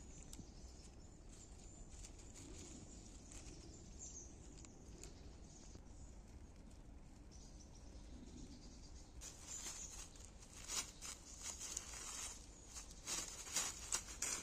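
Quiet outdoor background, then from about nine seconds in, a quick irregular run of crackles and rustles in dry leaf litter as a schipperke moves about on it, growing louder near the end.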